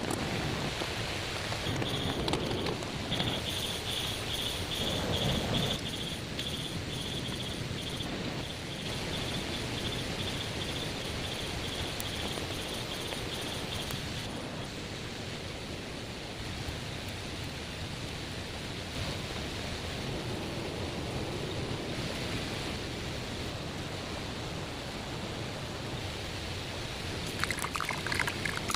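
Rainforest ambience: a steady rushing noise, with an insect trilling high and fast from about two seconds in until about halfway through. A few clicks near the end.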